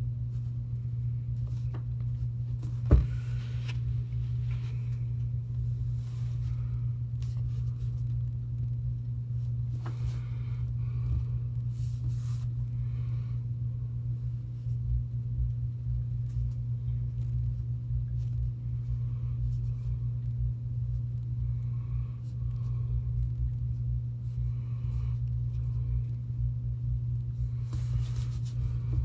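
Steady low hum with a deeper rumble beneath it, and a single sharp click about three seconds in.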